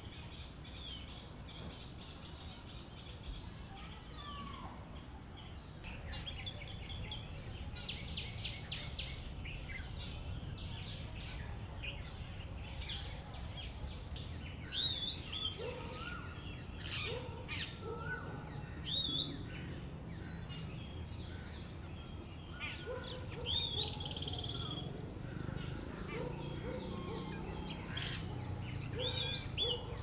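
Several birds calling, with varied short chirps and hooked whistles throughout and a quick rattling trill about a quarter of the way in. About halfway through, a steady high whine starts and runs under the calls.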